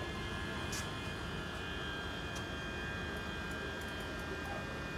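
Electric multiple unit train rolling slowly past on the rails, with a steady electric whine over a low wheel rumble and a few faint clicks.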